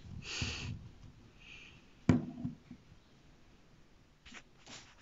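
Quiet handling noise from plastic toy figures being moved: a soft swish early on, a sharp knock about two seconds in, and a couple of faint clicks near the end.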